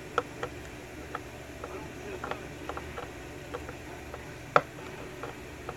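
Screwdriver working on the back of a brass lock cylinder: scattered small metallic clicks and scrapes, with one sharp click about four and a half seconds in.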